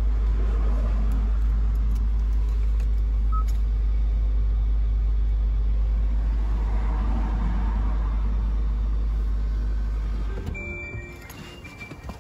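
Steady low rumble heard inside a Hyundai Ioniq's cabin, cutting off abruptly about ten seconds in. Short electronic chime tones and small clicks follow.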